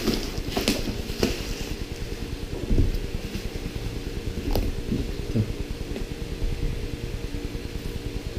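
Plastic bubble wrap crinkling as it is pulled off a cardboard box in the first second or so, then a few soft knocks as the box is set down and handled on a wooden table. A steady low hum runs underneath throughout.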